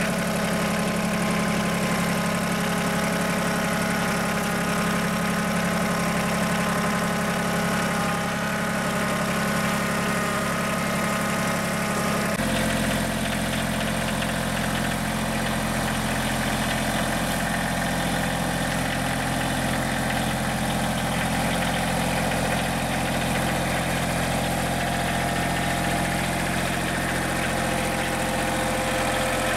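Mahindra 2015 HST compact diesel tractor's engine running steadily at low speed as the tractor is driven. About twelve seconds in the sound changes abruptly, with more deep rumble.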